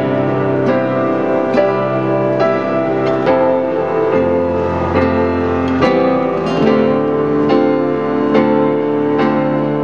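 Grand piano and acoustic guitar playing a slow instrumental duet, with sustained chords and melody notes struck about once a second.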